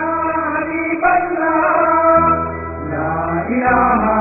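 Background music: a voice singing a chant-like melody over held low notes that change pitch twice.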